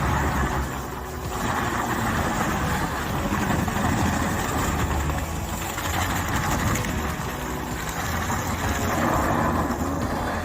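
Heavy machine's engine running steadily: a low hum under a rushing noise that swells and fades.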